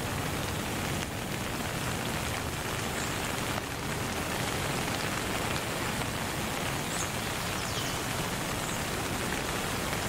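Steady rain ambience, an even hiss, with a few faint high chirps that glide down.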